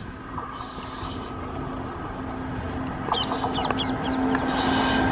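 WAM-4 electric locomotive and its passenger train approaching: a low rumble with a steady hum that grows louder toward the end. A few bird chirps come about three seconds in.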